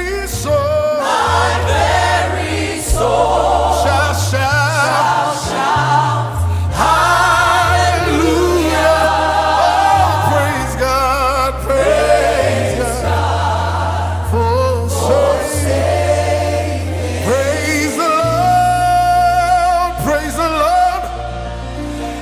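Gospel music performed live: a choir and singers with a band, sung melody lines over steady stepped bass notes.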